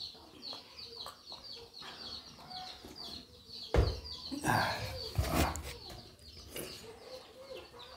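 Chickens calling in the background, short high calls repeating several times a second. Eating sounds come from the table: a sharp knock a little before halfway, as of a steel vessel set down, then about a second of mouth noises from rice being eaten by hand.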